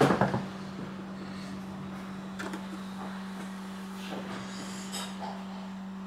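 A steady low hum with a few faint clicks, from the buttons of a digital fridge thermostat being pressed.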